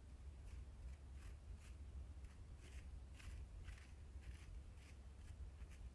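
Gloved hand raking through wood-gasifier charcoal and clinker on a perforated metal sieve: faint, short scratchy rattles of the pieces, irregular, about two or three a second, over a low steady rumble.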